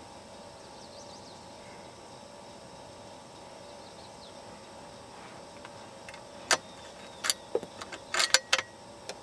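A handful of sharp clicks and a short metallic clatter in the last few seconds, over a steady background hiss.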